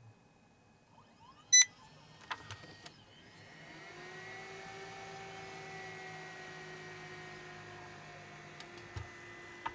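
A BenQ DLP projector powering on: a short electronic beep, a few clicks, then a motor whine that rises as it spins up and holds steady. The motor is the colour wheel motor, just replaced because it kept stopping.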